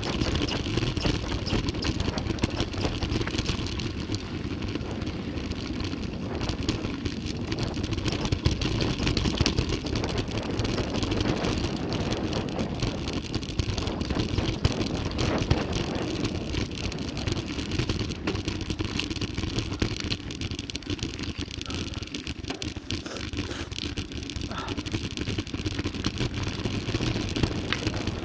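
Mountain bike descending a rough trail: steady rushing wind noise on the camera microphone, with the bike clattering and rattling over the ground.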